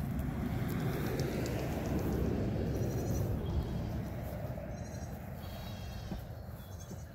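Goat kids bleating a few short times, over a steady low rumbling noise that is loudest in the first half.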